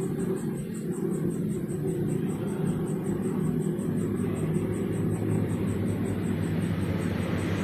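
Steady low engine hum, like a vehicle running close by, with a fast, even high-pitched pulsing chirp repeating several times a second over it.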